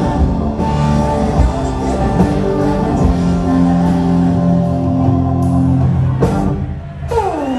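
Southern rock band playing live: electric guitars, bass and drums with held chords. The music dips briefly near the end, followed by a falling guitar slide.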